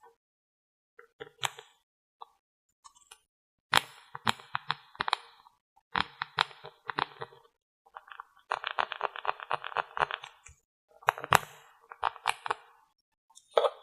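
Close-up tapping and clicking on small hard makeup containers, in short clusters, with a quick run of rapid taps a little past the middle.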